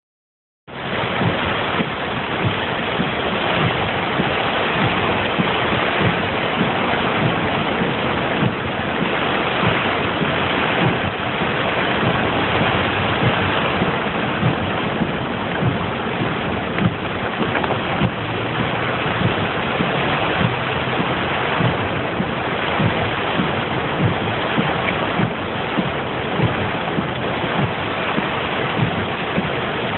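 Continuous rushing noise of water, steady throughout, with frequent short low knocks underneath.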